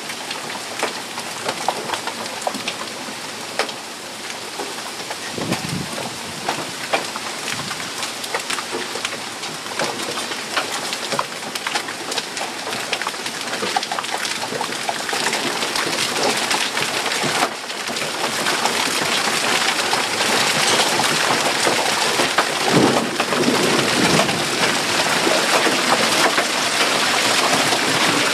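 Heavy rain mixed with hail pouring down on pavement and plants, a dense hiss full of sharp ticks from hailstones striking. The downpour grows louder about two-thirds of the way through.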